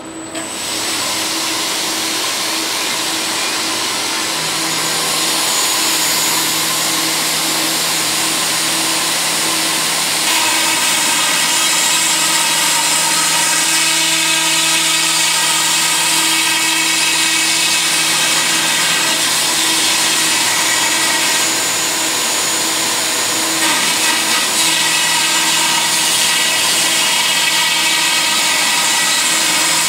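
ABB robot's milling spindle running steadily as it machines a mold, a constant whine over cutting noise whose tones shift a few times as the cut changes.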